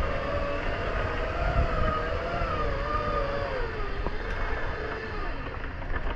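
A motor running with a whine that wavers slowly up and down in pitch, over a steady low rumble.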